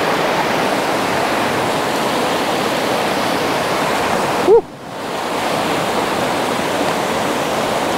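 McKenzie River rapids rushing steadily over rocks. About halfway through, one short, loud pitched sound, then a brief cut-out before the rushing resumes.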